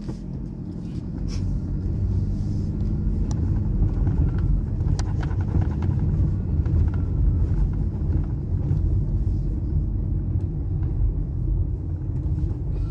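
Car driving: steady engine and road rumble that grows louder over the first couple of seconds as the car gets moving, with a few light clicks.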